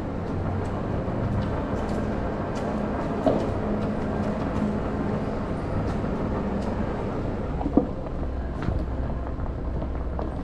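Electric off-road Segway being ridden over paving: a steady drive hum with tyre rumble, and two short knocks from bumps, about three and eight seconds in.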